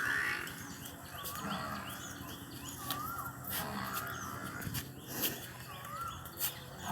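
Birds chirping in short, repeated calls, with a few sharp clicks or knocks in between.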